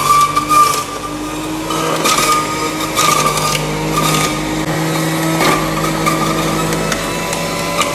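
Panasonic electric juicer's motor running with a steady whine while celery stalks are fed down the chute and shredded, with several sharp crunches as the stalks hit the cutter.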